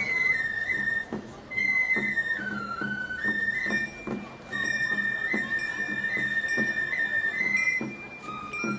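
Traditional Japanese festival music: a high bamboo flute plays a slow melody of long held notes that step up and down, over percussion beats about every half second to second.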